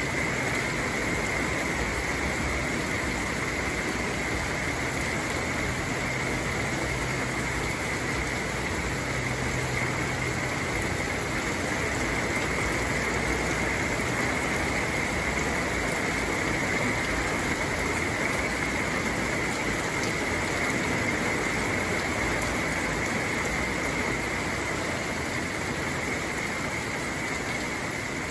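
Heavy rain pouring steadily onto leafy trees: an even hiss.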